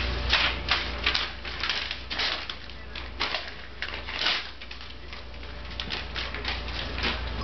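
A dog biting, tugging and tearing at sheets of paper, the paper crinkling and ripping in quick, irregular rustles, busiest in the first few seconds.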